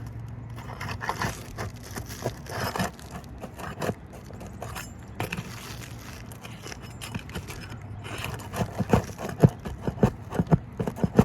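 A tool scraping and knocking under asphalt architectural roof shingles as roofing nails are pried loose, the knocks coming thicker and louder in the last few seconds.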